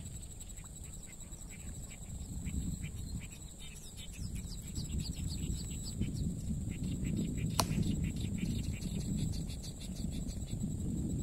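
Outdoor ambience: a low rumble of wind and handling on the microphone, a steady high insect whine, and faint rapid chirping calls through the middle, with one sharp click about seven and a half seconds in.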